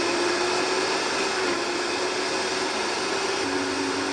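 Vitamix power blender running at speed, puréeing boiled carrots with a little cooking water into a thick sauce: a steady motor whine over a churning rush, with a second, lower motor tone joining about three and a half seconds in.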